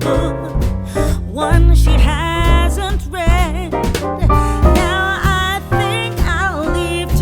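Music: a song, a singing voice with vibrato over instrumental accompaniment with a steady bass.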